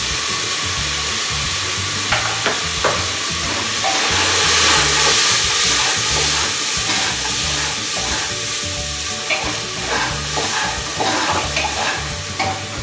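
Vegetables and spices frying in oil in a pressure cooker, a steady sizzle that swells a few seconds in, while a spoon stirs and clinks against the pot.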